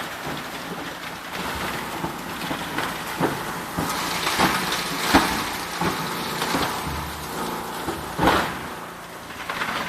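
Plastic granulator crushing plastic buckets: irregular sharp cracks and crunches as the rotor blades break up the plastic, over the machine's steady running noise.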